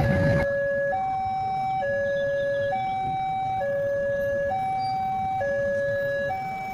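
Electronic two-tone warning alarm at a railway level crossing, switching between a lower and a higher tone about once a second. The broad rumble of the passing train cuts off abruptly about half a second in.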